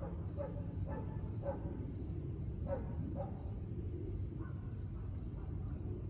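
Outdoor nature ambience: a bird gives a run of short calls, about five in the first half and fainter ones after. Behind them are a steady low rumble and a constant high buzz.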